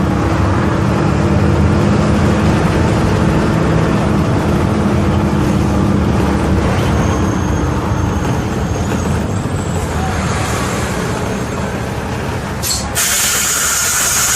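Diesel engine of a Volvo B270F city bus running steadily. Near the end a click is followed by a loud, sustained hiss of compressed air from the bus's pneumatic system.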